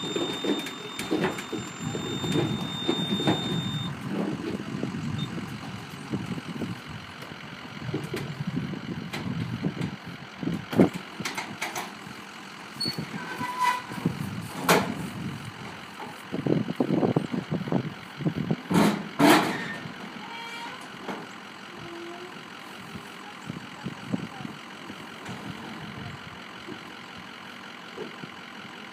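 Irregular thumps and metallic bangs from an aluminium livestock trailer over a low rumble. The sharpest, loudest bangs come a little past the middle, then it settles to a quieter steady background.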